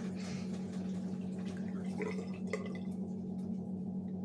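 Water dripping and splashing softly as a face mask is warmed in hot water, over a steady low hum.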